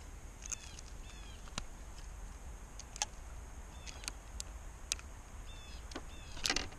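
A small bird chirping several times in short hooked calls, with scattered sharp clicks and a low steady background rumble.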